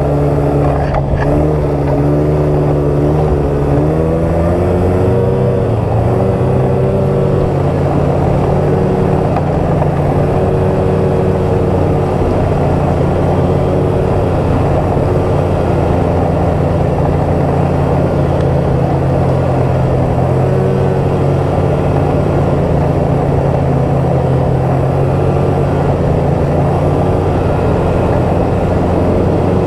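2018 Polaris XCR 800 Switchback snowmobile's two-stroke twin engine running under throttle on the trail. Its pitch rises about four seconds in and then holds fairly steady over a constant rush of noise.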